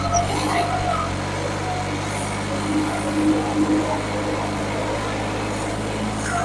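New Holland 3630 tractor's diesel engine, fitted with a modified fuel-injection pump and turbo, running steadily under load while pulling a disc harrow through soil.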